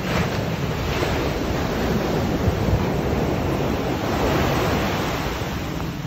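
Ocean surf: a wave breaking and its foam washing up the beach as a steady, loud rush of water. It rises sharply as the wave breaks at the very beginning and eases a little near the end.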